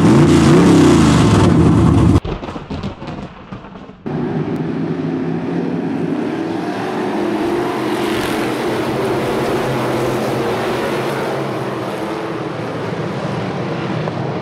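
An engine revving up and back down, loud, cutting off suddenly about two seconds in. After a quieter stretch, a field of street stock race cars is heard running together on a dirt oval, a steady engine drone from the pack.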